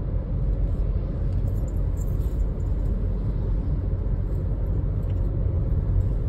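Steady in-cabin rumble of a 2024 Hyundai Creta's 1.5-litre diesel and its tyres, cruising at about 65 km/h.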